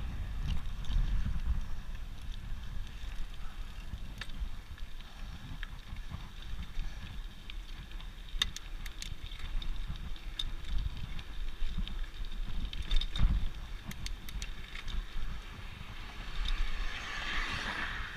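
Bicycle being ridden over grass and then a cracked concrete path: low tyre rumble and wind on the microphone, with sharp clicks and rattles from the bike at bumps, several in the middle. A louder rushing sound swells near the end.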